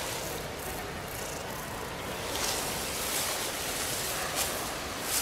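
Film soundtrack of an outdoor field scene: a steady hissing, rustling countryside ambience. Louder rustles come in about two seconds in, and a soft click follows a little after four seconds.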